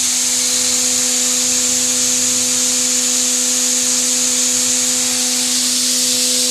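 Franz Kessler machine-tool spindle running steadily at 15,000 rpm on a test run after repair: a constant hum with a high hiss over it.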